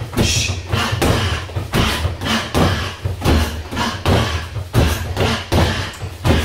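Gloved punches and kicks striking a free-standing punch bag in jab, cross, front kick combinations: a steady run of thuds, two or three a second.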